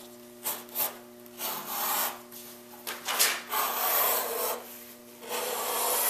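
Wooden draw-gauge strap cutter pulled along the edge of a side of veg-tan leather, its blade slicing off a strip. It scrapes in about five pulls of up to a second each, with short pauses between.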